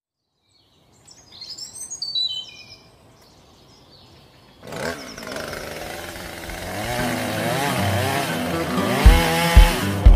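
Music: a brief run of falling bird chirps, then about five seconds in a buzzing, droning sound whose tone sweeps up and down, joined near the end by deep drum beats about half a second apart.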